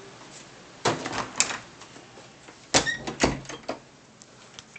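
A room door being shut and latched: two short clusters of clicks and knocks, about a second in and about three seconds in.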